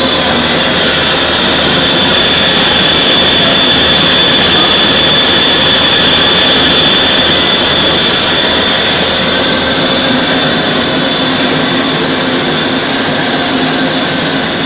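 Vertical turning lathe running: a loud, steady mechanical drone with a high whine that is strongest in the middle and eases off after about ten seconds.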